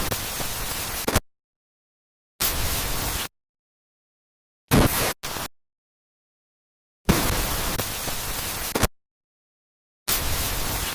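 Bursts of static-like hiss, about six of them from half a second to two seconds long at irregular spacing, each switching on and off abruptly with dead silence between.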